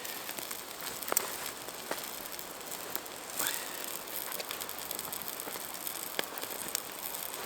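Small wood fire in a Firebox stove crackling steadily, with scattered sharp pops.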